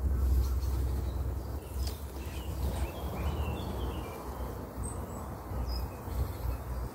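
Honeybees humming around an open hive feeder, with a few short bird chirps about three seconds in over a steady low rumble.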